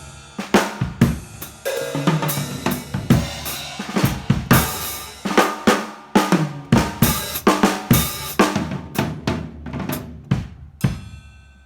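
Drum kit played in a busy run of hits on drums and cymbals, about three to four strokes a second, stopping near the end.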